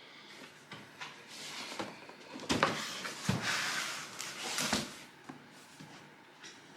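Cardboard-and-plastic Funko POP box being handled: scraping and rustling with a few sharp knocks, busiest in the middle.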